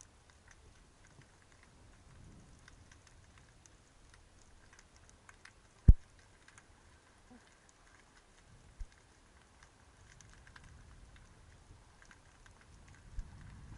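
Underwater ambience: a faint, irregular crackle of many tiny clicks, with a single loud low thump about six seconds in and a softer one near the end.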